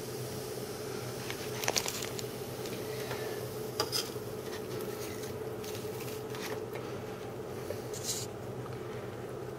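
Small paper cups tapping and rustling on a tabletop while liquid is poured from them onto potting soil, with a brief soft splash of poured milk near the end. A steady low room hum runs underneath.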